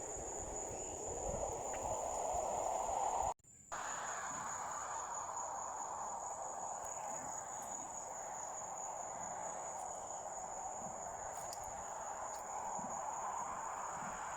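Crickets trilling in a steady, unbroken high-pitched chorus over a low, even rushing hiss. The sound cuts out completely for a moment about three seconds in, then resumes unchanged.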